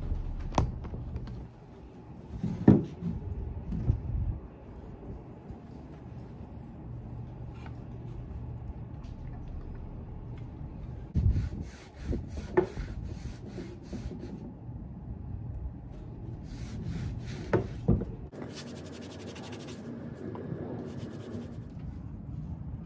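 Cloth rag rubbing over a painted wooden cabinet door in short runs of quick strokes. A few sharp knocks come as the door is handled, the loudest about three seconds in.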